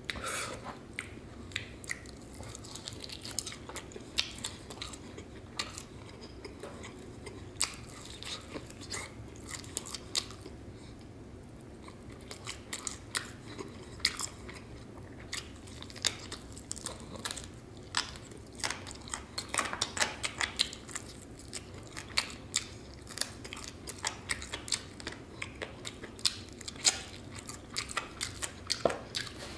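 A person biting and chewing sauced, bone-in fried chicken wings close to the microphone, with irregular short crunches and clicks.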